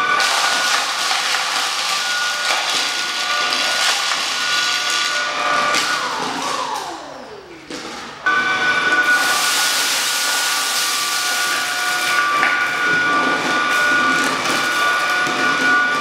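Tineco A11 Hero cordless stick vacuum running on standard suction, a high steady whine over rushing air. About six seconds in, the motor winds down, its whine falling steeply in pitch and fading. About eight seconds in, it is running again at full speed.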